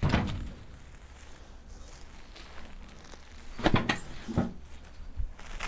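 Scattered knocks and clatter: one sharp knock at the start, then a short cluster of knocks about three and a half to four and a half seconds in, over a low steady background hum.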